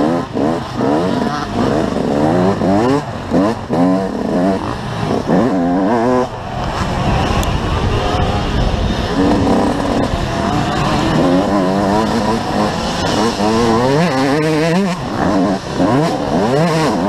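Motocross bike engine, heard close from its own onboard camera, revving up and dropping back again and again through gear changes and throttle on and off around the track, with a steadier spell of held throttle partway through. Wind noise runs over the microphone.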